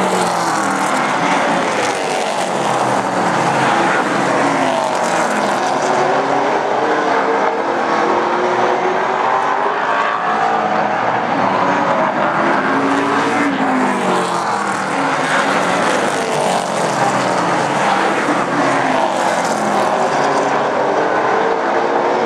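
Several Super Stock race cars' engines running hard at racing speed, a loud steady din. Their pitch sweeps up and down over and over as the cars lap the oval and pass by.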